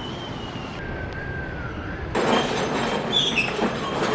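Train running on rails with its wheels squealing: a thin high squeal that slowly drops in pitch, then louder rumbling with short sharp squeals from about two seconds in.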